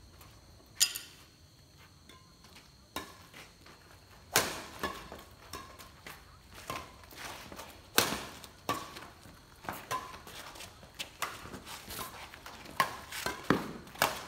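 Badminton rackets striking a shuttlecock during a rally, with sharp hits at irregular intervals, sparse at first and closer together from about four seconds in, among players' footsteps on the court.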